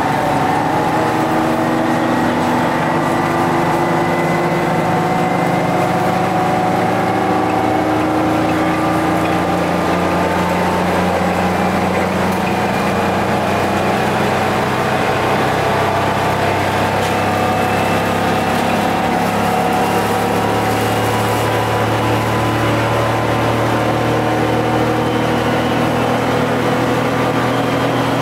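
GM TDH-5303 transit bus's Detroit Diesel two-stroke engine running as the bus drives. It is a steady drone whose pitch drifts slowly up and down, climbing gradually over the last several seconds.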